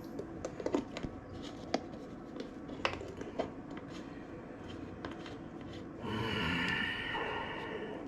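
Light clicks and knocks of kitchen containers being handled, then, about six seconds in, a louder squeaky squelch lasting about a second and a half that fades out.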